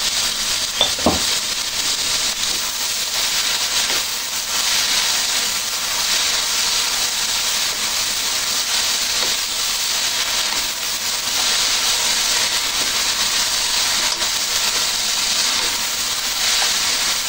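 Flat rice noodles and bean sprouts sizzling steadily in a hot wok as they are stirred and turned with a wooden spatula, with a brief knock about a second in.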